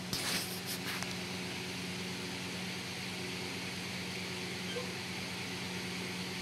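Steady hum and hiss of room tone, with a short burst of rustling in the first second.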